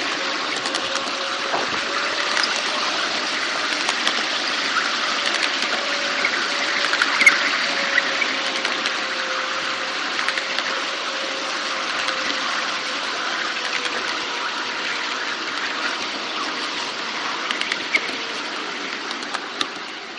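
A 5-inch gauge model of a Class 52 Western diesel locomotive running along the track: a steady rushing of wheels on rail, with a faint whine that slowly drops in pitch and a few light clicks from the running gear.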